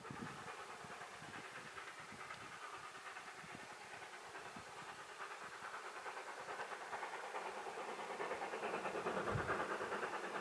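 Two Rio Grande K-36 steam locomotives double-heading a long freight, their exhaust chuffing in a rapid, overlapping beat with steam hiss, growing louder toward the end.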